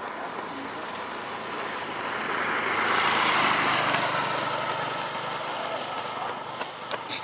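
A motor vehicle passes by on the road, its engine and tyre noise rising to a peak about three and a half seconds in and then fading away.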